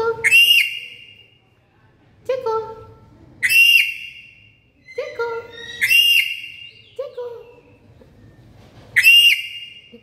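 Black-capped lory giving four loud, shrill whistling calls about three seconds apart, with shorter, quieter lower notes between them.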